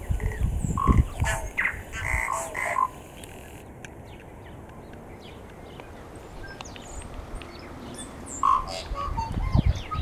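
Tui calling from a flowering tree: a quick jumble of short clicks, croaky notes and brief piping notes about a second in, then quieter, and another cluster of calls near the end.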